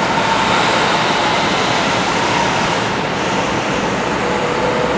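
Steady roar of downtown city traffic heard from high up, with a faint steady hum running through it.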